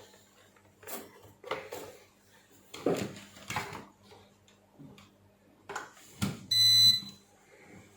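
Several scattered clicks and knocks, then one short electronic beep near the end from an induction cooker's buzzer as the cooker is powered up.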